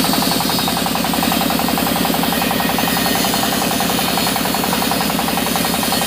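Sawmill band saw running steadily with a fast, even pulsing, sawing a mahogany beam.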